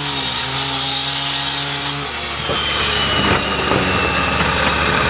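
A motor runs with a steady hum that cuts out about two seconds in, leaving outdoor noise with a few sharp knocks.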